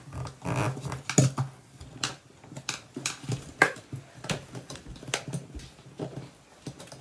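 Plastic LEGO Technic parts clicking and knocking as they are handled and pressed together on a tabletop: irregular sharp clicks, about one or two a second.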